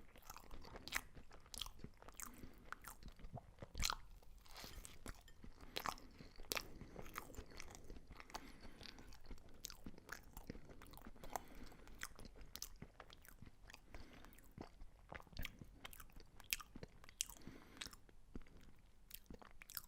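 Close-up chewing of crisp food: irregular crunching bites and crackles, several a second, with softer mouth sounds between.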